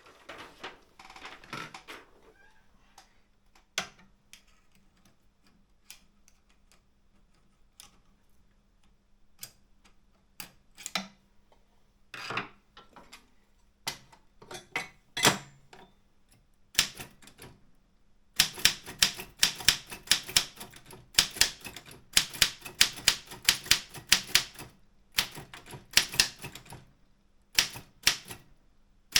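Keystrokes on an Optima M14 manual office typewriter: slow, scattered single strikes at first, then from about 18 seconds in a fast, continuous run of typing.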